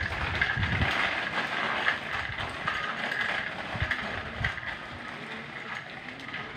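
Small children's bicycle with training wheels rattling as it rolls over concrete, growing fainter as it moves away.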